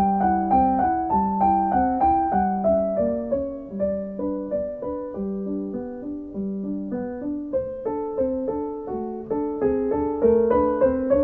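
Background music played on piano: an unbroken flow of notes, several a second, over a lower line of longer notes.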